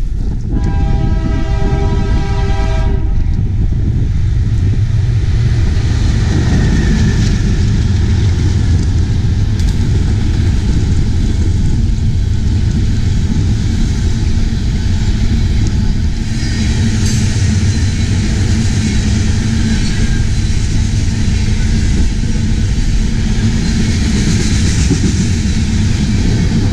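Freight train horn sounding one chord for about two and a half seconds, then a long string of railroad tank cars rolling past with a steady rumble and clatter of wheels on rail. The wheel noise turns sharper and higher-pitched a little past halfway and again near the end.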